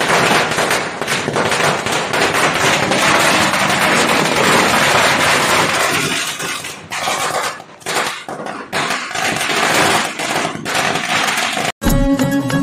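A string of firecrackers going off on the ground in a dense, rapid crackle of bangs, thinning out after about six and a half seconds. It cuts off sharply near the end, where music takes over.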